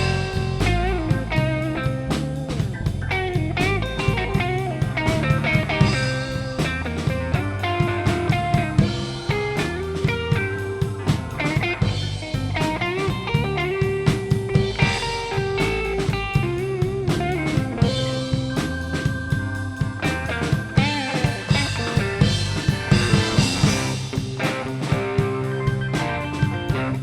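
Blues-rock band playing an instrumental passage: electric guitar lead with bending notes over bass and a drum kit keeping a steady beat.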